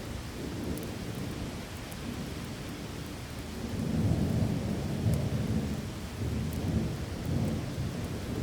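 Steady heavy rain with a low, rolling rumble of thunder that swells about halfway through.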